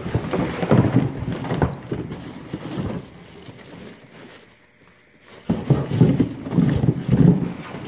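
Gloved hands rummaging through a cardboard box of plastic bags, cellophane and papers: crinkling plastic and rustling paper with soft knocks of items shifting. The handling drops away briefly a little past halfway, then picks up again.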